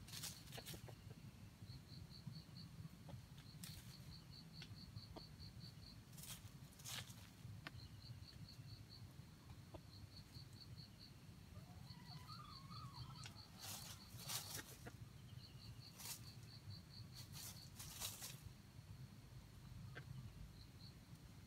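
Faint outdoor ambience under trees: a high, rapid pulsing chirp in short trains, sharp rustles or snaps scattered through it, and a low steady rumble underneath.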